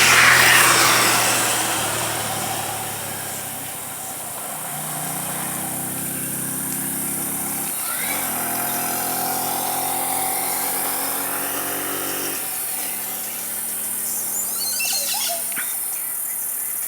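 A motor vehicle's engine running steadily, its pitch stepping to a new level about four, eight and twelve seconds in, under a constant high insect hiss. A few short bird calls come near the end.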